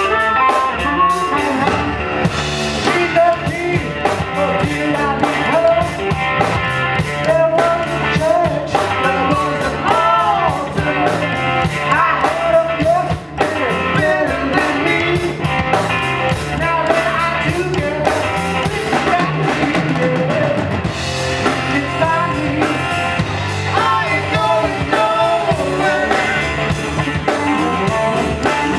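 Blues band playing: electric guitar over bass and drum kit, with a steady beat.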